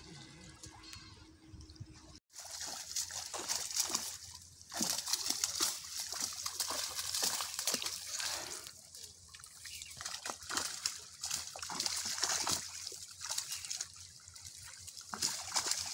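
Pond water splashing and sloshing in irregular surges as a fishing net is dragged through the shallows and lifted by hand. The splashing starts abruptly about two seconds in.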